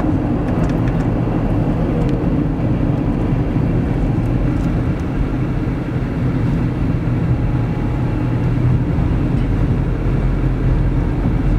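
Steady engine and road noise of a car, heard from inside the cabin as it drives along.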